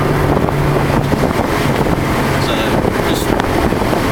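Car engine running at speed on a race track, its steady hum fading into heavy wind and road noise about a second and a half in.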